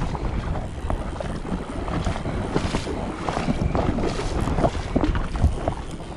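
River water rushing and splashing, with wind buffeting the microphone.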